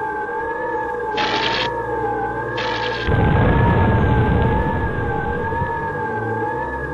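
Sound-effect explosion: a deep blast about three seconds in that fades over a second or so. Two short hissing bursts come before it, all over a steady wavering, siren-like tone.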